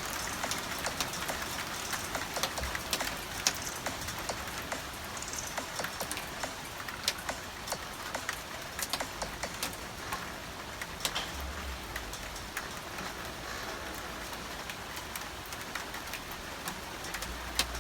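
Steady rain falling, with many scattered sharp ticks of drops striking a hard surface.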